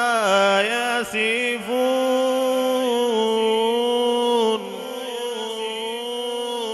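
A male qari's voice, amplified through a handheld microphone, holding a long, melodic, ornamented note in Quran recitation: the drawn-out close of a verse. It drops to a softer held tone about four and a half seconds in.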